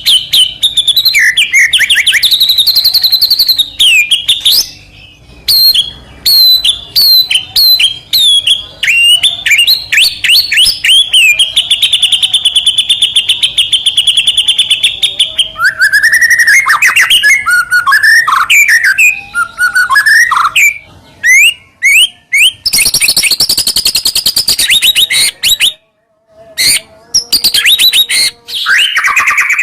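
White-rumped shama (murai batu) singing loudly: a fast, varied song of rapid repeated chirps, a long even trill about halfway through, and swooping rising and falling whistled notes, with short breaks now and then.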